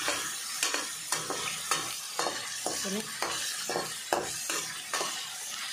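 Paneer cubes sizzling in hot oil in a metal kadai while a steel ladle stirs them, scraping and knocking against the pan about twice a second. The cubes are still damp from the fridge, which keeps the oil sputtering.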